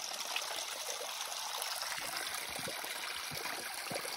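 Small mountain stream trickling steadily over rocks.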